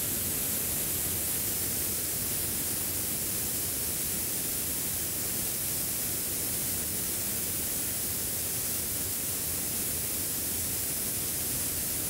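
Compressed air hissing steadily out of a paint spray gun held fully open, bleeding the compressor tank down from 140 to 120 psi through an aftermarket high-flow quick-connect fitting. The hiss starts abruptly and stops near the end, tailing off briefly.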